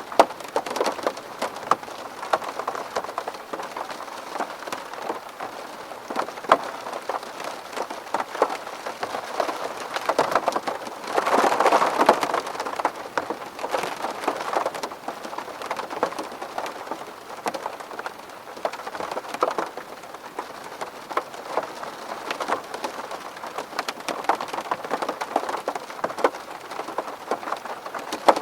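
Rain falling on a window: many separate drops tapping over a steady wash of water noise, swelling louder for a couple of seconds about eleven seconds in.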